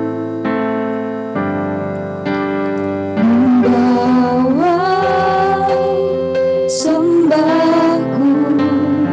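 Slow Indonesian worship song: sustained keyboard chords, with female singing coming in about three seconds in and sliding between held notes.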